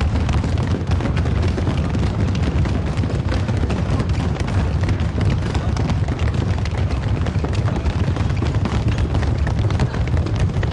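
Heavy stamping of feet, a dense run of thuds packed so close together that they merge into a continuous low rumble.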